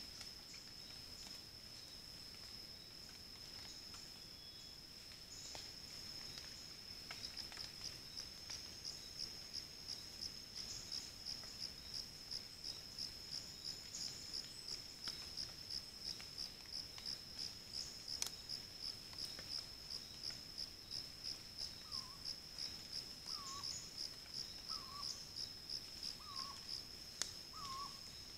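A night insect's high, thin buzz, steady at first and then pulsing about twice a second. Near the end a short, lower call with a downward hook repeats six times, about a second and a half apart.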